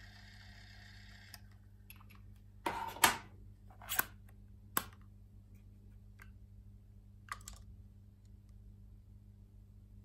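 Sony WM-F100-III cassette Walkman being handled: a few sharp plastic-and-metal clicks and knocks as its cassette compartment lid is shut, the loudest about three seconds in, with lighter clicks after.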